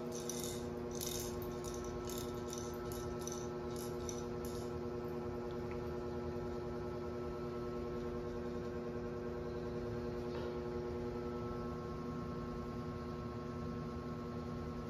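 Motorised spinning toy chick running with a steady hum of several fixed tones, its plastic body and feathers rattling in quick clicks against the tile floor for the first four seconds or so.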